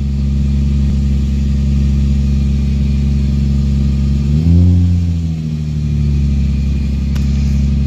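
Nissan 350Z's VQ35 V6 engine idling steadily, with one brief rev a little past halfway. The idle sounds smooth, with no misfire: the owner takes the new battery to have cured it.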